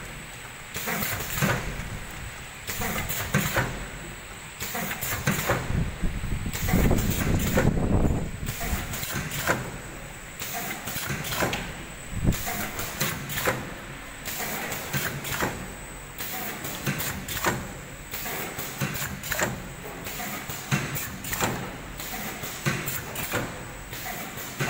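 A mooncake encrusting and forming machine running: repeated knocks and air hisses at a regular beat of about once a second as its pneumatic forming mechanism cycles, over a steady machine hum. A stretch of louder low rumbling comes about six to eight seconds in.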